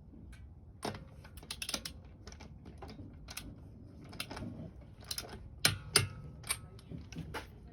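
Irregular sharp clicks and light knocks of small hard objects being handled, about a dozen in all, the loudest a pair about two-thirds of the way through.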